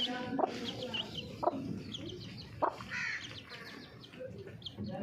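Aseel mother hen clucking repeatedly while her chicks peep in short high chirps, with a few sharp clicks among the calls.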